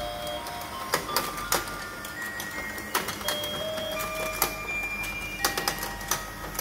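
Battery-powered toy fishing game running: a tinny electronic tune of plain single beeps plays over the whir of its motor, with irregular sharp plastic clicks.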